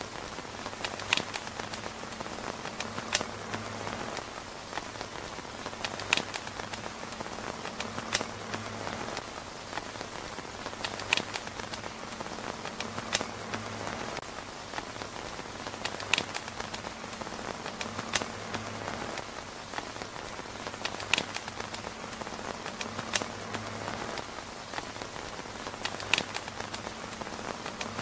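Steady rain pattering on a tent roof, with a sharp pop every two to three seconds.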